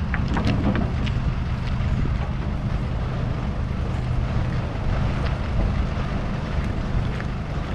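Engine of a crane truck idling with a steady low hum. There are a few light clicks and knocks in the first second or so, with wind noise on the microphone.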